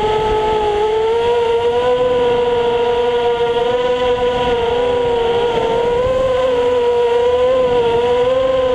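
FPV racing quadcopter's brushless motors whining in flight on a 3S battery, heard through the onboard camera, the pitch wavering up and down with the throttle.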